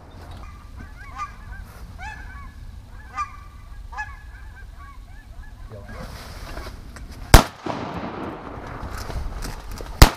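Canada geese honking on the water, a run of calls over the first four seconds or so. A rushing noise follows, broken by two sharp, loud cracks, one past the middle and one near the end; these cracks are louder than the honks.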